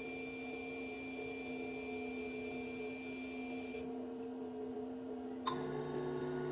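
ZM-R7220A BGA rework station running with a steady mechanical hum and faint whining tones as its pick-up nozzle moves to fetch the chip. A high whine drops out a little before four seconds in, and a click about five and a half seconds in brings in a lower, slightly louder hum.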